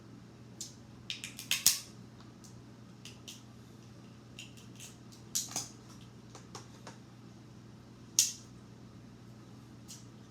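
Crab leg shells cracking and snapping as they are broken open by hand: irregular sharp cracks and clicks in small clusters, loudest a little under two seconds in and again about eight seconds in, over a steady low hum.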